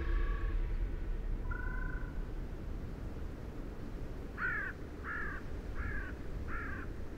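Short high calls from an animal: two single calls in the first two seconds, then four quick calls in a row about a second apart, each rising and falling in pitch, over a low rumble like wind.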